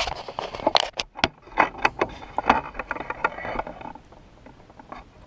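Handling noise: a quick jumble of clicks, knocks and scrapes for about four seconds, then it goes quiet.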